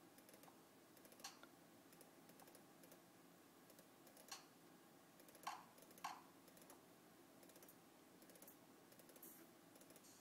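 Near silence broken by a few faint, separate clicks of computer keys being pressed, about four spread across the stretch, the last two the strongest.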